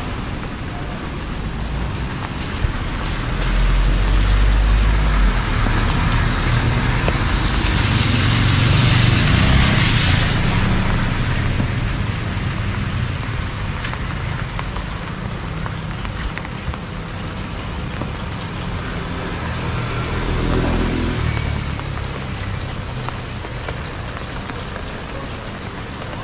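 Rain falling on a street with motor vehicles passing over the wet road, their tyres hissing. One pass swells louder about a third of the way in, and another smaller one comes later.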